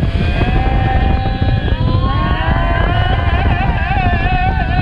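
Strong wind buffeting the microphone on a sailboat driving hard through the waves, with the rush of the bow wave under it. Over the roar, a high, wavering whistle of several tones runs throughout and bends more from about two seconds in.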